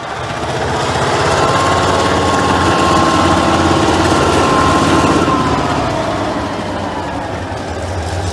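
Diesel locomotive pushing a wedge snowplow through deep snow drifts: a steady low engine drone under a rush of noise, with a high steady whine that drops in pitch about five seconds in.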